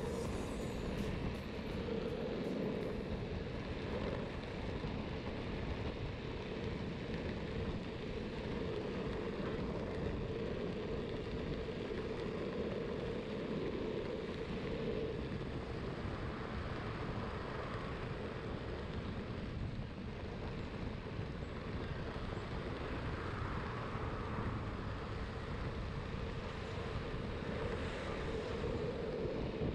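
Riding an electric longboard: steady wind noise on the microphone over the continuous rumble of the board rolling on the road.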